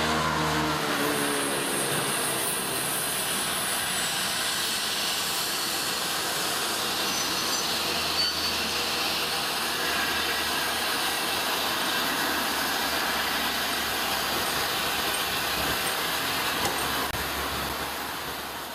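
Steady rumbling and hissing from a Manning Wardle L Class 0-6-0ST saddle-tank steam locomotive and its coaches, fading out near the end.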